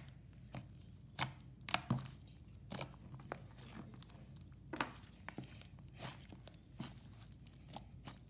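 DIY clay slime being squeezed, kneaded and stretched by hand, giving irregular sharp clicks and pops, roughly one or two a second.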